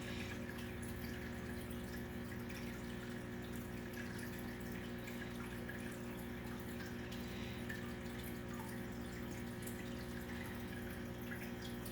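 Faint fizzing and crackling of a baking-soda slime mixture bubbling, over a steady low hum of room tone.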